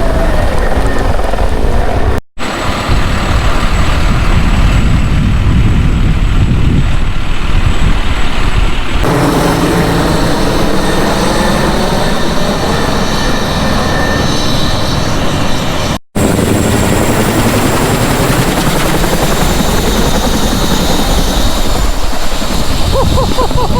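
Helicopter flying close by, its rotor and turbine noise loud and steady with a heavy low rumble. It drops out suddenly twice at edit cuts, about two seconds in and about sixteen seconds in.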